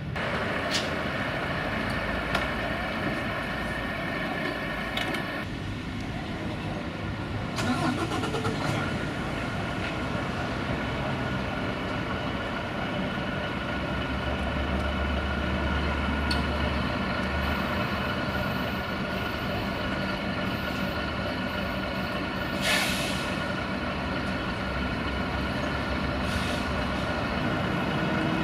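Volvo FH16 heavy truck's 16-litre straight-six diesel engine running steadily, with a few clanks about eight seconds in and a short hiss a little over twenty seconds in.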